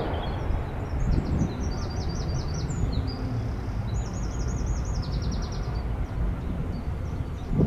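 Small songbirds singing trills and quick runs of repeated notes over a steady low rumble, with a brief thump just before the end.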